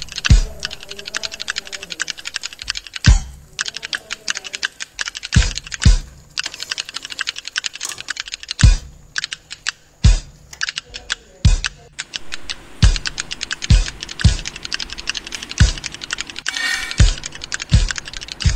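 Background Rajasthani folk song in an instrumental passage: deep drum strokes every second or two under fast, dense clicking percussion.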